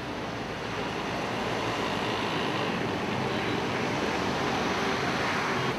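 Steady road traffic noise from a busy street, an even rush of passing vehicles.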